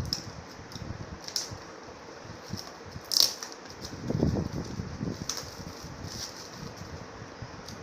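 Light clicks, taps and rattles from a boxed phone being handled, the loudest click about three seconds in.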